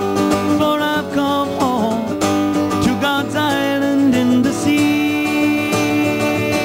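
Background music: a Hawaiian song led by acoustic guitar, in a stretch without lyrics, with melody notes that slide in pitch and a long held note near the end.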